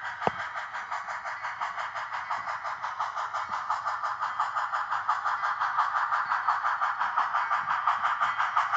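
Sound-equipped HOn3 model steam locomotive chuffing in a fast, even rhythm through its small onboard speaker, getting gradually louder. A single sharp click comes about a third of a second in.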